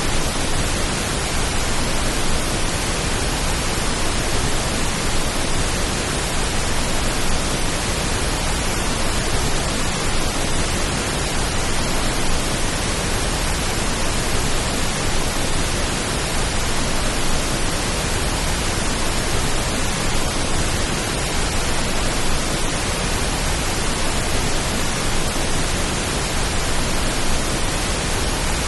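Steady, even pink noise, a constant hiss with no drops, clicks or changes, made as a stand-in for the sound of rain.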